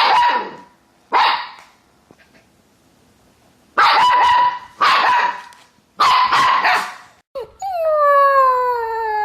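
Husky barking five times, in drawn-out barks with a gap after the second, then starting a long, wavering howl about seven and a half seconds in.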